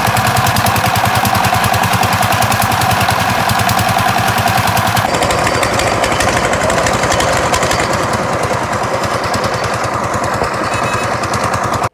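Engine of a construction material hoist running hard with a rapid, even chugging as it winches the bucket up the mast. The sound shifts about five seconds in.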